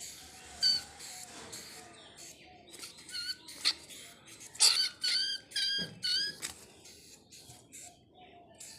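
A small animal's short, high-pitched squeaks: one about a second in, then a quick run of about five in the middle.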